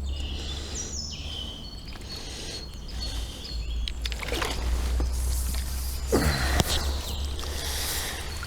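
Wind rumbling on the microphone, with small birds chirping throughout and a few short knocks about six seconds in.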